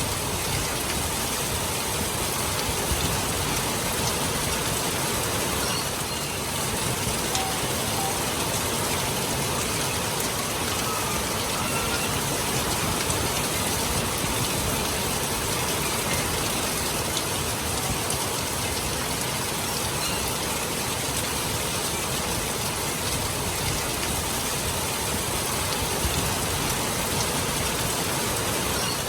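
Steady rain falling, an even unbroken hiss of drops on surfaces, with a few faint short whistle-like notes here and there.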